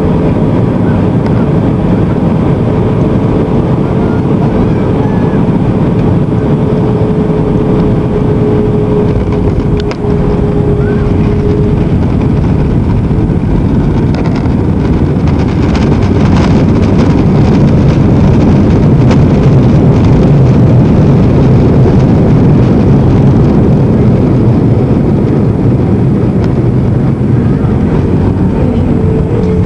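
Cabin noise inside an Airbus A320 on the ground after landing: a steady rumble of the engines and airflow. It grows louder about halfway through and eases again near the end. A steady tone is heard over the rumble for the first dozen seconds and returns near the end.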